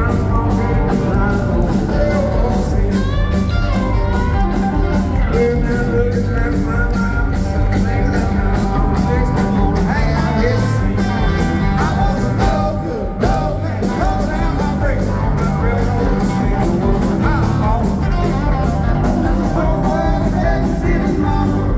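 Live rock band playing over a PA: electric guitars, bass, drums and keyboards.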